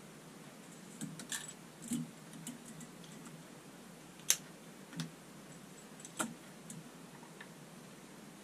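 Faint, scattered light clicks and taps, about eight of them at uneven intervals, the sharpest about four seconds in: the shower head's fittings and metal hose being handled and threaded onto the shower arm.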